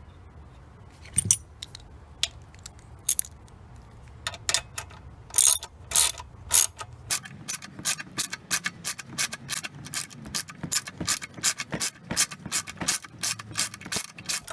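Socket ratchet wrench clicking as it tightens a Loctite-coated bolt that plugs the governor-arm hole in the crankcase. A few scattered clicks come first, then a steady run of about three clicks a second from about halfway through.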